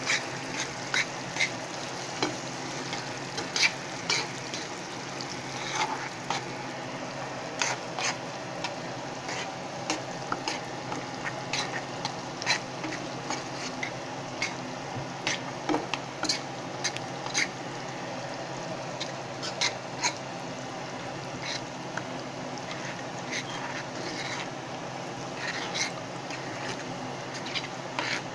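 Ground beef and tomato sauce being stirred in a pan: a utensil scrapes and knocks against the pan at irregular intervals over a steady low sizzle.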